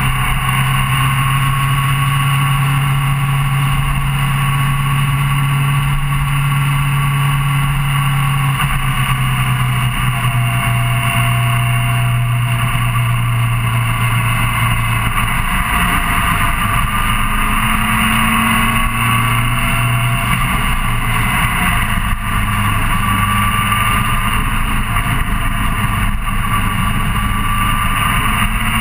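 Suzuki GSR600's inline-four engine running steadily while cruising, under a continuous wash of wind and road noise. The engine note drops slightly about nine seconds in and climbs again near the end.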